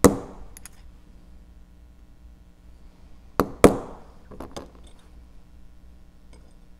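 Small hobby hammer tapping an X-Acto chisel blade against a metal plate to cut a brass photo-etch part off its fret. There is a sharp metallic strike at the very start, then a light tap and a harder strike about three and a half seconds in, followed by a few faint clicks.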